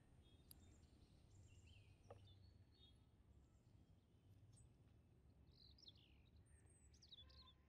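Near silence: faint outdoor ambience, with a few distant bird chirps in the last couple of seconds.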